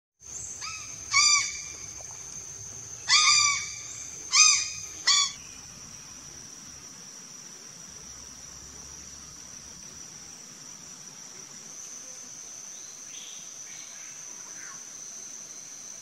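Grey crow (Corvus tristis) calling four times in the first five seconds, each call a short note with a clear pitch that rises and falls. A steady high-pitched whine runs underneath throughout.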